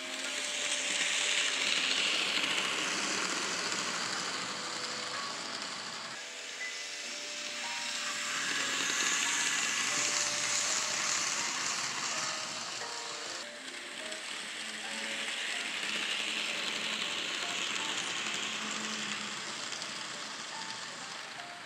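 N scale model train, a Penn Central E8A locomotive pulling passenger cars, running on the layout track: a hissing whir of motor and wheels on rail that swells as the train passes close and fades as it moves away, three times over.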